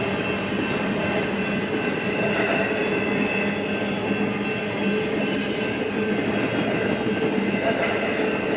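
Union Pacific intermodal freight train's well cars rolling past at speed: a steady rumble of steel wheels on the rails with a thin steady ringing tone over it.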